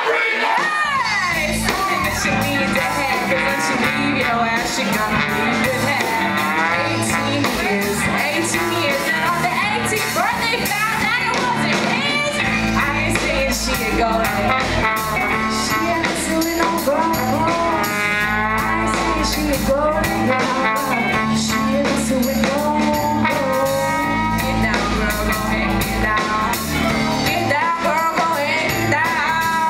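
Live band playing rock music with drums, bass guitar, acoustic guitar and violin, and a woman singing at the microphone.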